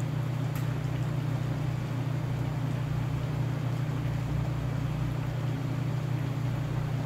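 Pot of water at a rolling boil with a piece of beef simmering in it, over a steady low hum.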